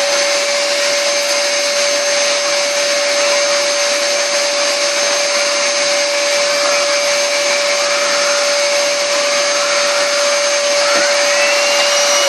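Numatic tub vacuum cleaner running steadily at full power while its floor head is pushed over carpet: a constant rushing noise with a steady motor whine.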